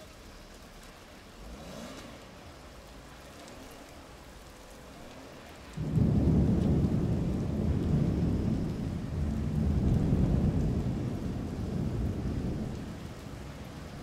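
Steady rain falling, then about six seconds in a sudden loud thunderclap that rolls on as a low rumble for several seconds before fading back to the rain.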